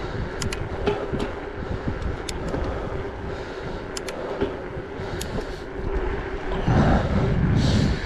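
Wind rushing over the microphone of a camera on a moving mountain bike, over the steady hum of its tyres rolling on asphalt, with scattered sharp clicks. The wind gets louder for the last second or so.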